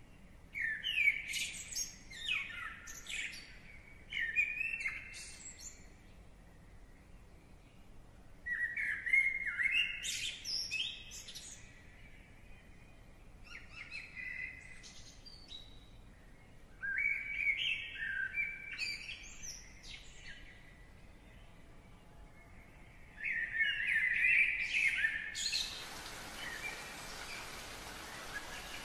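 A songbird singing, short phrases of rising and falling whistled notes repeated every few seconds. Near the end a steady hiss sets in.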